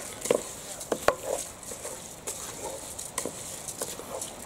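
Flat spatula stirring soaked raw rice into sautéed vegetables in an aluminium pressure cooker. It scrapes through the rice and gives irregular clicks and knocks against the pot, the sharpest about a second in and again after about three seconds.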